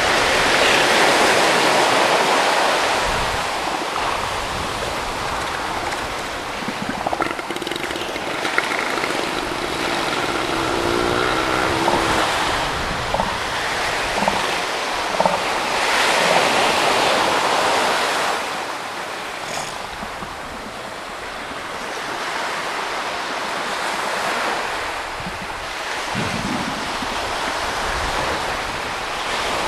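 Ocean surf washing onto the beach, a steady rush that swells and eases slowly. A few short, low grunting calls from northern elephant seals come through partway in and again near the end.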